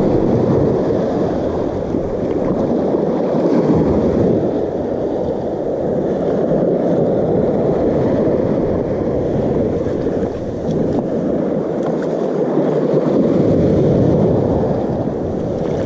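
Small waves breaking and washing up a sandy shore, a steady rushing that swells and eases every few seconds, mixed with wind on the microphone.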